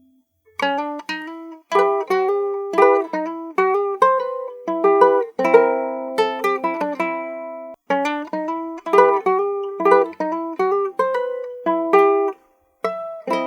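A handmade tres hondureño, a small guitar-like string instrument, plucked in a melody of quick single notes that each ring briefly. It plays in short phrases with brief breaks between them.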